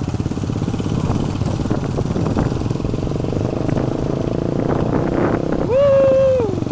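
Motorcycle engine running steadily while riding along a dirt track. Near the end a loud held tone, lasting under a second and dropping in pitch as it stops, rises over the engine.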